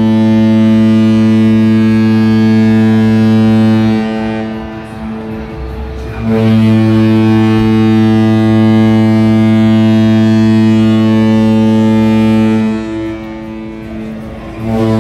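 A Carnival cruise ship's horn sounds long, low farewell blasts as two ships salute each other. One blast ends about four seconds in, the next lasts about six seconds, and a third begins near the end.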